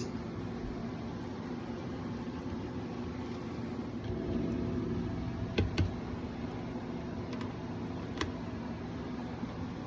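Steady low mechanical hum from a motor or engine, with a few sharp clicks about halfway through and once more later.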